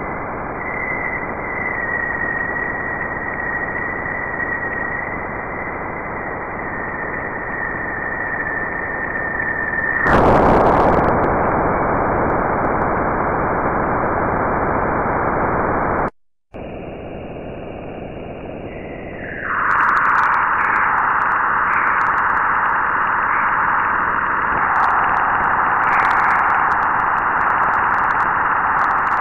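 Juno spacecraft Waves instrument plasma-wave data turned into sound. It starts as a steady high tone over hiss: upstream plasma oscillations in the solar wind. About ten seconds in it breaks into a sudden loud rush of noise as the spacecraft crosses Jupiter's bow shock. After a brief break, a second recording of hiss swells a few seconds later into a loud, rough band of noise: trapped continuum radiation just inside the magnetopause.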